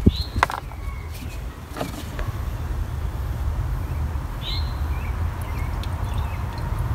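Steady low background rumble with two light clicks in the first two seconds as oil-filler parts are handled on the engine, and a bird chirping once about four and a half seconds in. The engine is not running.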